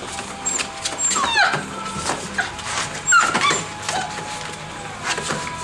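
Young puppies whining and yelping in short cries that drop in pitch, the loudest about a second in and again about three seconds in, with light clicks of claws on a hard floor.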